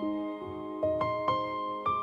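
Soft background piano music: a slow melody of single held notes, each struck and left to ring.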